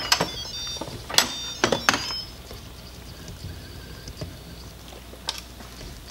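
Instant Pot pressure cooker lid being twisted open and lifted off after a cooking cycle: a few sharp plastic-and-metal clicks and knocks in the first two seconds, and one more knock about five seconds in.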